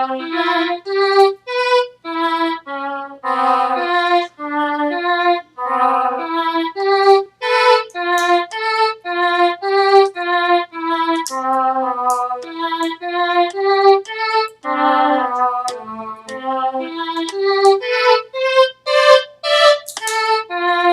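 Electronic keyboard playing a tune in its violin voice, a steady run of separate notes one after another.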